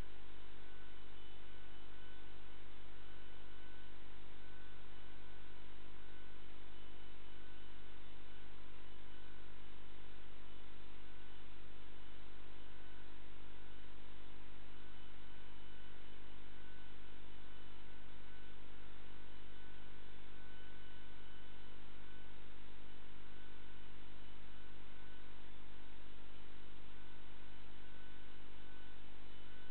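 Steady electrical mains hum with a buzz of higher tones over a hiss, unchanging throughout.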